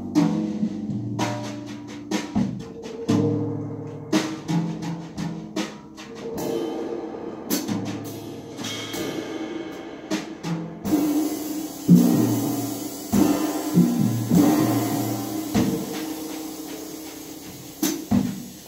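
Live jazz from a piano, double bass and drums group, with the drum kit to the fore: a string of drum strikes over low sustained notes. From about halfway through, a steady cymbal wash joins in.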